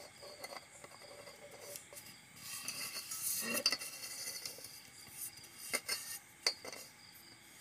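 A sheet of newspaper rustling and rubbing as hands press it flat into an oiled metal cake tin. There are a few short sharp clicks against the tin about six seconds in.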